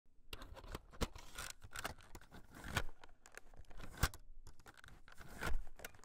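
Added VHS-style sound effect: irregular crackling and rustling noise broken by sharp clicks, with a louder burst near the end.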